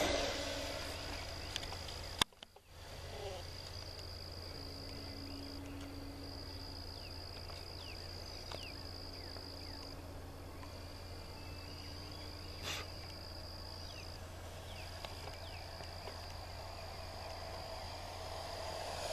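ParkZone F4U-1A Corsair electric RC plane passing: its brushless motor and propeller whine fades away in the first second and builds again near the end as it comes back round. In between, a steady high insect trill.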